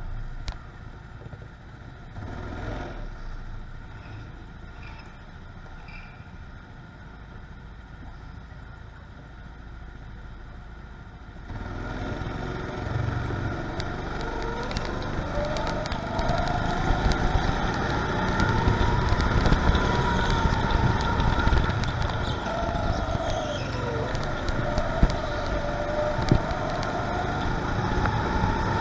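Go-kart engine running as the kart is driven, its pitch rising and falling with the throttle, with a rattle over it. Quiet until about eleven seconds in, then suddenly much louder.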